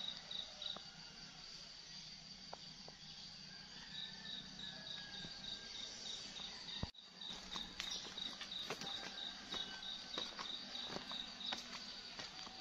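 Insects chirping outdoors: runs of short, high chirps at about four a second, over a steady high insect hum, with scattered light clicks.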